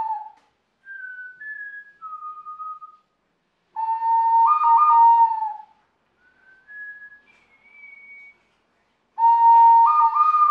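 Ceramic bird whistle blown in three loud blasts about four to five seconds apart. Each blast is a steady note that flips briefly up a step and back. Between the blasts come fainter sets of three short, higher single notes.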